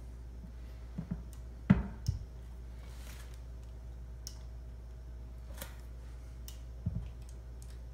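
A handful of short knocks and clicks as a polystone statue is worked down onto the peg of its heavy base, a tight fit. The loudest knock comes just under two seconds in, with fainter ticks after it and another pair of knocks near the end.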